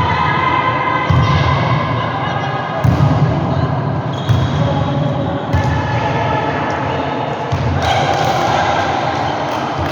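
Volleyball being hit and landing on a gym floor, several sharp thuds, amid players' voices and calls echoing in a large hall.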